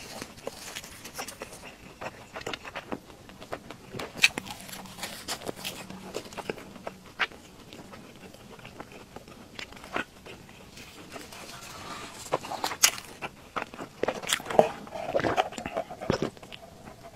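Close-miked wet chewing and mouth clicks from a person eating fried dough stick, with scattered short smacks. Near the end, sipping through a straw brings a denser run of sucking and swallowing sounds.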